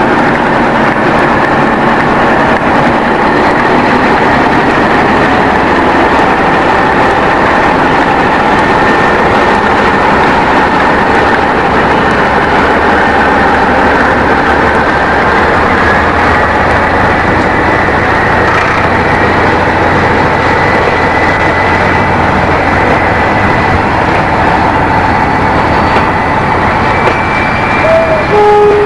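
Class 58 diesel locomotive's Ruston V12 engine running loudly under power as it pulls away with a coal train, its note rising a little partway through. A brief squeal comes near the end.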